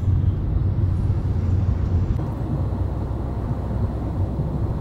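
Steady low rumble of engine and road noise inside a passenger van's cabin while it drives along a highway. The rumble shifts slightly about two seconds in.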